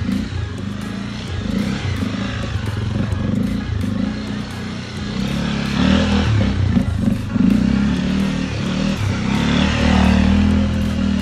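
Honda XRE motorcycle's single-cylinder engine running under throttle while the bike is held in a wheelie, the engine note rising and falling a little as the rider works the throttle.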